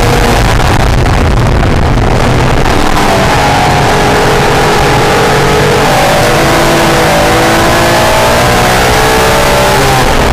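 Acura NSX's mid-mounted V6 pulling hard on track over a loud, steady road and wind roar. Its pitch climbs, then dips back at gear changes a few times in the second half.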